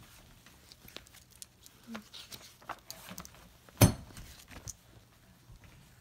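A paper picture-book page being turned while the book and a handheld phone camera are handled: light rustles and scattered clicks, with one sharp knock a little before four seconds in.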